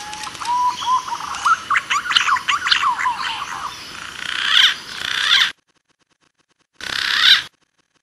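Green pigeons (punai) calling: a few rising whistles, then a quick run of sweeping whistled notes, cutting off abruptly about five and a half seconds in. After a second of silence a short burst of calls returns near the end.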